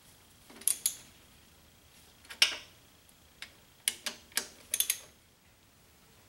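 Sharp metallic clicks and clinks of a steel rod knocking against the shift forks and rails inside a Ford 8N tractor's cast-iron transmission case: a few single clicks, then a quick cluster, stopping about five seconds in.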